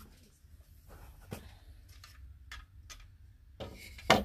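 Light handling sounds on a tabletop: a few faint, scattered clicks, then a sharp knock near the end as a small wooden trap is set down on the table.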